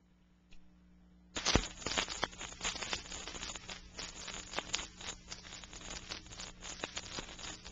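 Stylus on a 45 rpm vinyl single: a soft thump about half a second in, then from about a second and a half in a steady run of surface crackle and pops from the lead-in groove before the music starts.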